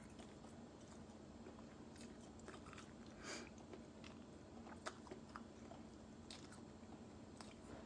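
Faint chewing and wet mouth sounds of someone eating, with scattered small clicks and smacks; the most noticeable smack comes a little after three seconds in.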